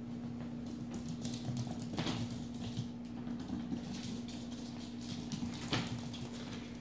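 Pomeranian puppy's claws pattering and scrabbling on a hardwood floor, with two sharp knocks, one about two seconds in and another about four seconds later, over a steady low hum.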